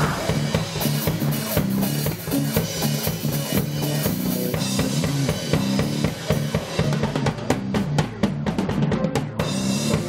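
Drum kit being played in a busy beat, kick and snare hits with cymbals, over a bass line that moves in pitch.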